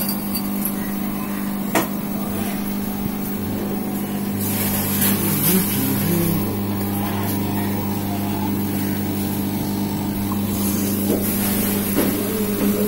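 Aquarium pump humming steadily, an electric mains hum, with a lower hum joining about four seconds in. A couple of light knocks come about two seconds in and near the end.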